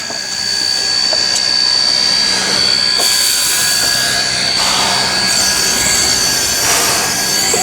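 Steam locomotive A428 hissing loudly and steadily as it releases steam, with a thin high whistle-like tone running through the hiss.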